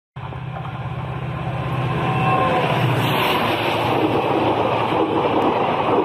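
WDM-3A diesel locomotive approaching, its engine giving a steady low rumble under a growing rush of wheel and rail noise that gets louder as it nears.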